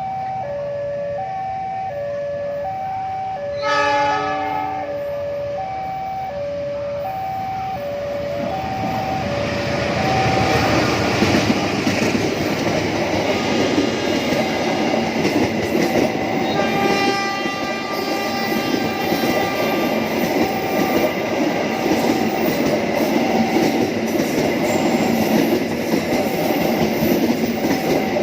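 Railway level-crossing warning bell sounding two alternating tones about twice a second, with a short train horn blast about four seconds in. From about ten seconds on, a train passes with a growing rumble and wheel clatter that drowns out the bell.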